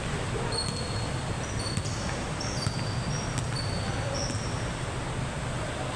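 Basketball game ambience in a large hall: a steady low rumble with a scatter of short, high sneaker squeaks on the court surface and a few faint knocks.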